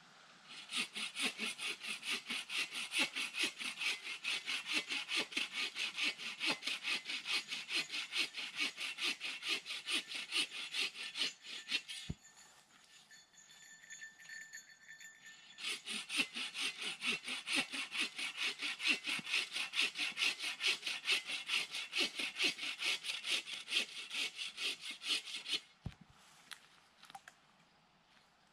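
Hand saw cutting through a dry dead log in quick, even back-and-forth strokes. It stops for a few seconds around the middle, then resumes, and stops again near the end.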